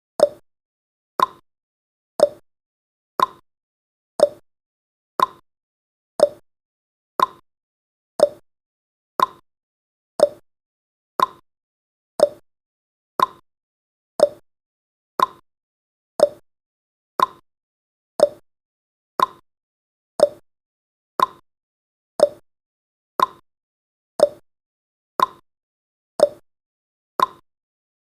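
Countdown timer's clock tick-tock sound effect: a short, sharp tick once every second, alternating between a lower and a higher pitch.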